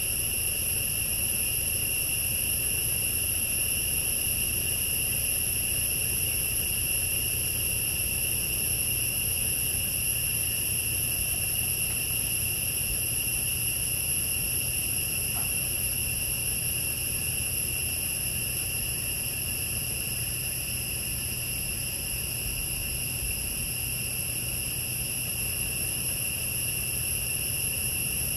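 Steady forest insect chorus: several unbroken high-pitched trills sustained at even loudness, over a low steady rumble.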